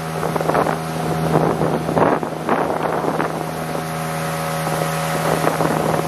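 Motorboat engine running steadily at speed, with water rushing past the hull and wind buffeting the microphone in short gusts.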